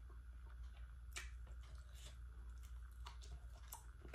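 A person chewing pan-fried octopus, with small wet mouth clicks and smacks scattered through, over a steady low hum.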